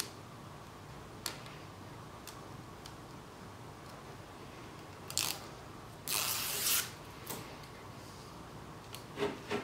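Quiet handling sounds of an LED light strip being fitted into a PVC channel: a few faint clicks, a short rasping rustle lasting under a second a little past halfway, and two soft knocks near the end as the strip is set down.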